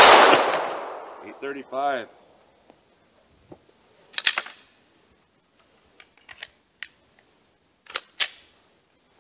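A single shot from a Glock 21 .45 ACP pistol right at the start, its echo fading over about a second and a half, followed by a brief murmur. Then comes a scatter of sharp metallic clicks as the pistol is handled between shots.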